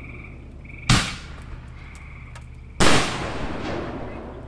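Two loud bangs from Hellcat canister shells, about two seconds apart, each trailing off in an echo, the second tail longer. A chorus of frogs trills steadily behind them and stops briefly after each bang.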